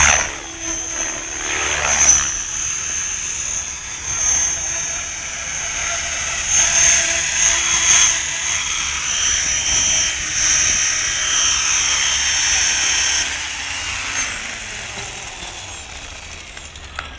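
Radio-controlled helicopter in flight, a steady high whine over the rushing of the rotor blades, louder in swells as it manoeuvres low. About 13 seconds in, the whine cuts off as it lands and the power is cut, and the sound dies away as the rotor winds down.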